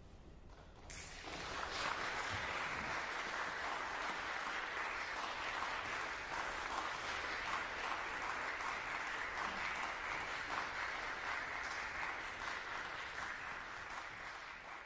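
Audience applauding, starting about a second in and building quickly to a steady level, then easing off near the end.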